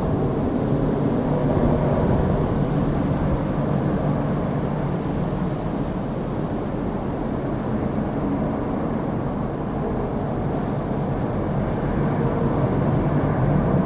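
Antonov An-26 turboprop engines running with a steady drone and a few steady low tones, dipping slightly midway and rising again near the end.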